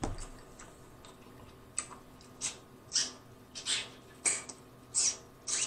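Short, wet sucking and smacking mouth sounds as a man works corn kernels out of his bottom teeth with his tongue and finger. There are about seven of them, roughly one every two-thirds of a second, starting about two seconds in.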